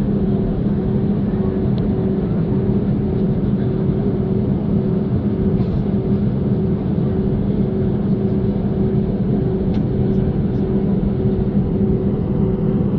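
Boeing 737 jet engines running at taxi power, heard inside the airliner cabin: a steady drone with a low, even hum.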